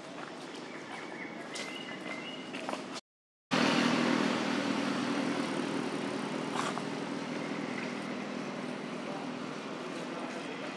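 Faint outdoor ambience, cut by a half-second dropout about three seconds in, after which a motor vehicle's engine is heard as a steady hum that slowly fades.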